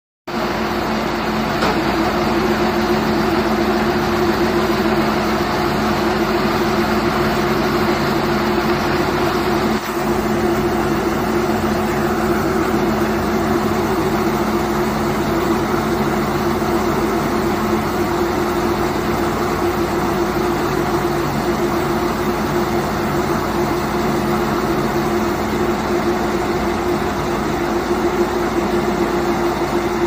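Silage round baler-wrapper machines running: a loud, steady mechanical drone with a constant hum, dipping briefly about ten seconds in.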